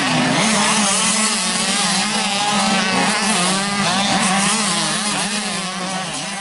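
Several motocross bikes' engines revving up and down over a steady drone as they ride around the track. The sound fades out near the end.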